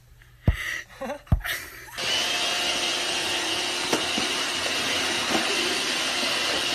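Two thumps, then from about two seconds in a robot vacuum cleaner running steadily, a loud even whir with a high whine.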